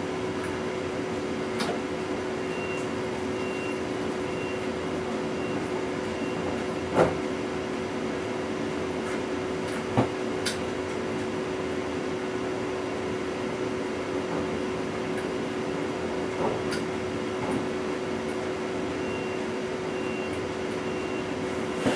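Steady electrical hum of a standing DB Class 425 electric multiple unit heard in the driver's cab, with two constant tones. Two sharp clicks come about seven and ten seconds in, and a faint high beep pulses on and off for a few seconds early on and again near the end.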